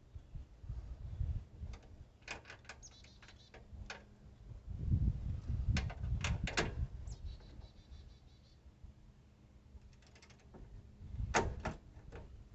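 Hand tools working metal bolts: scattered clicks and clinks of a socket wrench, in three short clusters, with a few dull knocks between them, as the fender bolts are undone.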